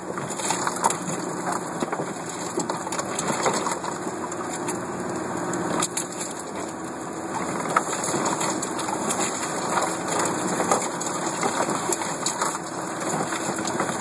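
Land Rover Defender engine running steadily as it climbs an off-road track, with branches and twigs repeatedly scraping, cracking and snapping against the vehicle.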